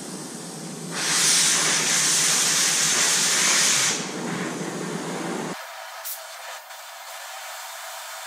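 Oxy-fuel cutting torch hissing steadily on a steel part. About a second in, the hiss jumps much louder for about three seconds and throws sparks, as the cutting oxygen blows through the hot metal. It then drops back to the quieter flame hiss.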